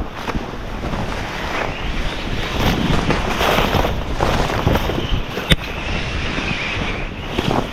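Wind buffeting the microphone in a snowstorm, rising and falling in gusts, with one sharp click about five and a half seconds in.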